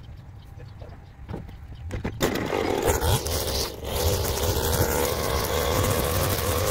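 Stihl FS 220 two-stroke brushcutter running low, then throttled up sharply about two seconds in and held at high revs with a steady high whine.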